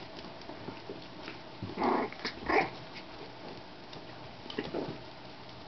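Shichon puppies yipping in play as they mouth at a hand: two short, loud yaps about two seconds in, then a fainter one later.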